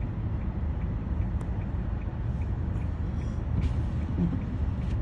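Steady low rumble of a car driving, heard from inside the cabin, with a faint regular ticking about two and a half times a second.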